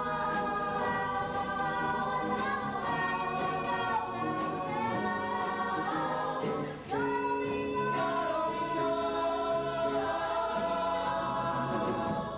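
A chorus of stage-musical cast voices singing an ensemble number. About seven seconds in there is a brief break, then a long held chord that cuts off near the end.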